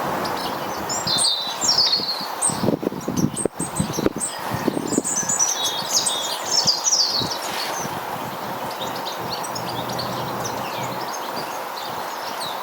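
Small garden birds chirping and twittering at a feeder, in busy bursts in the first half and again past the middle, with a cluster of low knocks and rustles a few seconds in.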